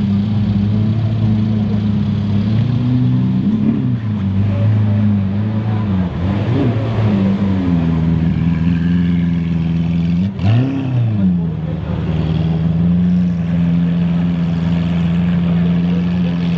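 Lamborghini Aventador's V12 running at low revs as it pulls away slowly, blipped up and straight back down three times, the biggest about ten seconds in.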